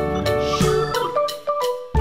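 Background music: an instrumental track with a bright melody of short pitched notes over a bass line and a steady beat.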